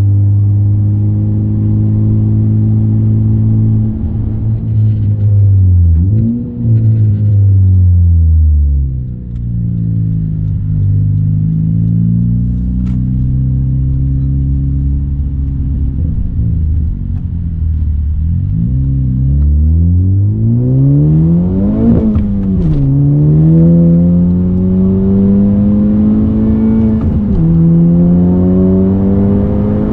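Honda Civic Type R FK8's turbocharged 2.0-litre four-cylinder engine, breathing through a J's Racing 70RS cat-back exhaust and RV6 front pipe, heard from inside the cabin. Revs climb and drop again and again as the car accelerates and shifts up through the gears, with a steadier, lower-revving stretch in the middle.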